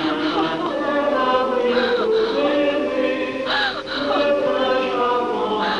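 Choir singing a slow, sustained melody in the film's orchestral score, long held notes changing every second or so, with a few bright shimmering flourishes.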